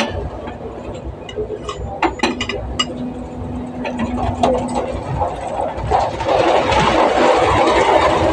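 Metal clinks and knocks of a wrench working the wheel nuts on a dump truck's rear dual wheel, over a steady low hum. A louder rushing noise builds over the last couple of seconds.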